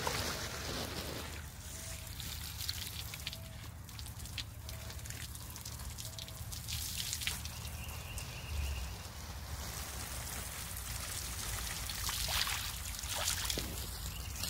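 Water spraying from a garden hose onto plants and brick steps, splashing and trickling.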